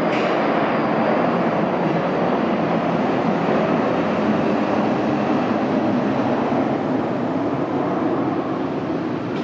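Cessna 650 Citation III's twin Garrett TFE731 turbofans at takeoff power: a steady jet roar that begins to fade slightly near the end as the jet climbs away.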